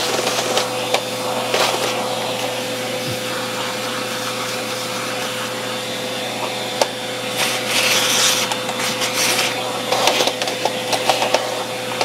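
Vacuum cleaner running steadily, its hose nozzle sucking dust and debris from the underside of a Roomba robot vacuum. A steady hum with a held mid-pitched tone runs throughout, with scattered clicks and bursts of rattling, most of them in the second half.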